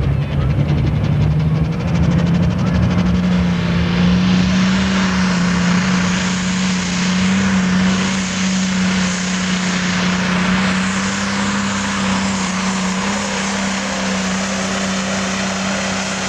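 Super stock / pro stock pulling tractor's turbocharged diesel engine running flat out as it drags the sled, with a loud, steady drone. Its pitch climbs over the first few seconds, then holds, and a loud hiss builds from about four seconds in.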